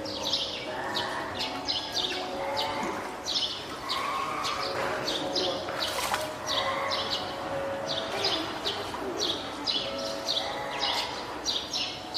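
A hand-reared spotted seal pup crying repeatedly in pitched, wavering calls, as if calling its keeper out of hunger or wanting to get out onto land. Rapid high chirps, about two a second, run alongside.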